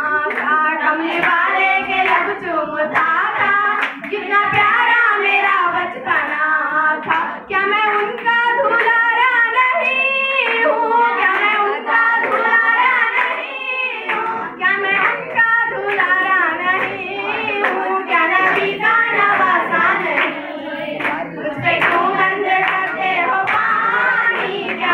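A girl singing into a microphone through a loudspeaker, with hand clapping going along with the song.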